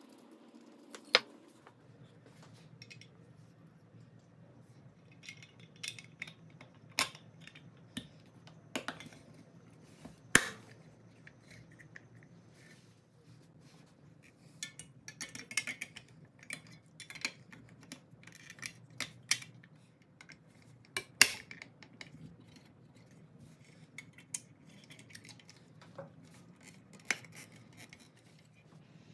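Scattered clicks and metallic clinks of pressed-steel Tonka toy truck parts being handled, fitted together and set down by hand during reassembly. A few sharp knocks stand out, about a second in, around ten seconds in and around twenty-one seconds in, with a busier run of small clinks in between, all over a faint steady low hum.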